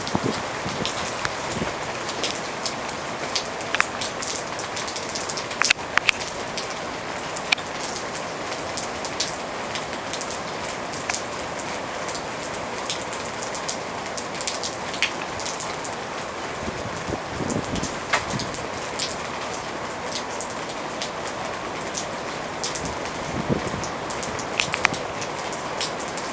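Steady heavy rain, with many sharp drops hitting a nearby surface throughout.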